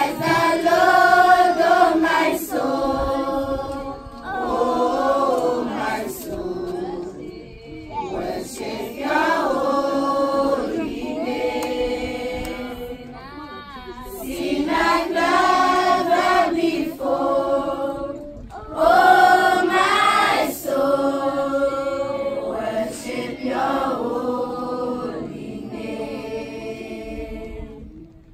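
A group of children singing together as a choir, in phrases of a few seconds each with brief pauses between them.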